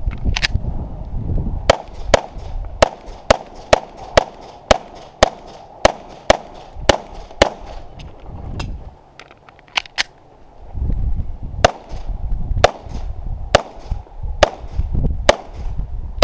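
A semi-automatic pistol firing about twenty shots. The shots come in quick runs of about two a second for the first eight seconds, then more spaced out, with a low rumble on the microphone between them.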